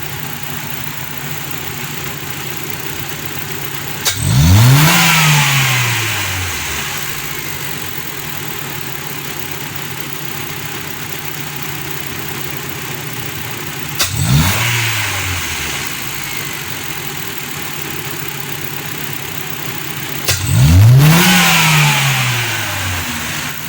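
Honda CF car engine idling smoothly, blipped three times: a few seconds in, about ten seconds later and near the end, each rev rising quickly and falling back to idle. It runs evenly with no misfire, its clogged injectors cleaned and new spark plugs fitted.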